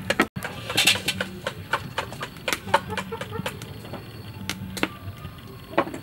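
A dove cooing in low, repeated phrases, over many scattered sharp clicks and knocks.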